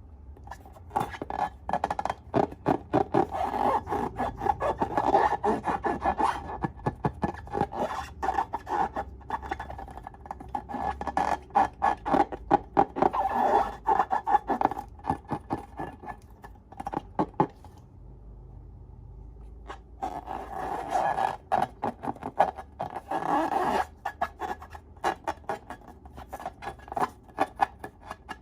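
Slime being squished and kneaded by hand: rapid crackling and clicking in bursts several seconds long, with short pauses between them.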